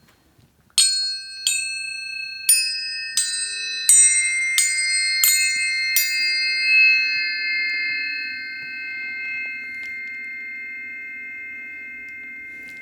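A run of about eight struck, bell-like metal tones, one every half to three-quarters of a second. Each has a bright attack and then a clear ringing tone, and the tones build into a sustained high chord that slowly fades. A faint low hum sits under it from about six seconds in.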